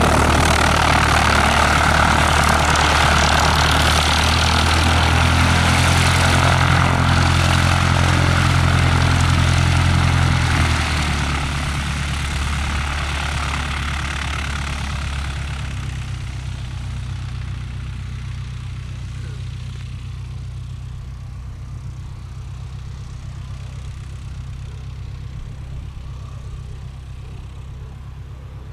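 De Havilland Chipmunk's four-cylinder Gipsy Major engine and propeller running at low power as the plane taxis on grass. About ten seconds in, the engine note drops and the sound grows steadily fainter as the aircraft moves away.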